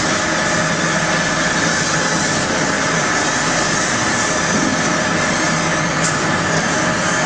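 Tyre-recycling rubber crushing machine with a rotating mesh drum screen running: a loud, steady mechanical noise with a constant hum of fixed tones and no breaks.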